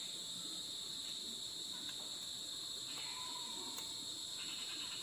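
Steady, high-pitched chorus of night insects, with a faint click a little before the end.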